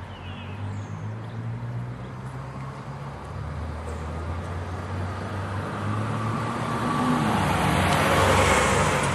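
A road vehicle's engine and tyre noise building up and passing close about eight seconds in, then fading, over a steady low hum.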